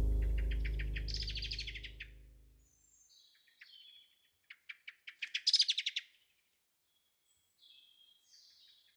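A low sustained music chord fades out over the first couple of seconds while a songbird sings. There are two rapid trilled phrases of about a second and a half each, the second starting with a few spaced notes and speeding up, and short chirps between them and near the end.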